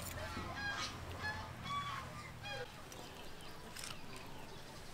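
Domestic fowl calling in the background: several short calls in the first three seconds, fewer after that.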